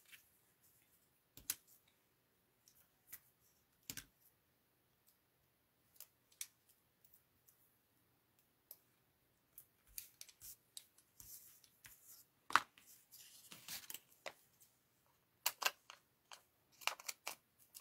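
Scattered small clicks, taps and faint rustles of hands working paper and foam adhesive dimensionals, peeling pads off their sheet and pressing them onto a paper snowman; the sharpest click comes about two-thirds of the way through, with a cluster of clicks near the end.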